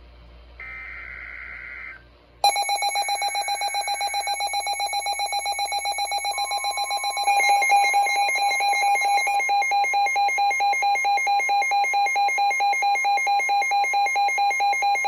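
NOAA weather radio alert: a short burst of SAME digital header tones, then about two and a half seconds in the weather radios' loud, fast-pulsing electronic alarm beeps start, joined a few seconds later by the broadcast's steady warning alarm tone. Everything cuts off together at the end; the alert signals a severe thunderstorm warning.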